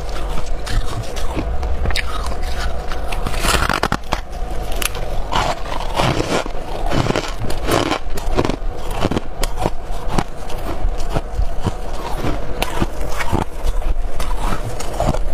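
Freezer frost and hard ice being bitten and chewed close to the microphone: a dense run of loud, irregular crunches and cracks.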